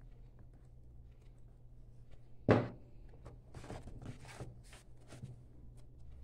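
A single thump against the tabletop about two and a half seconds in, followed by a few light taps and rustles of paper and a book being handled while a cutout is pressed down with glue.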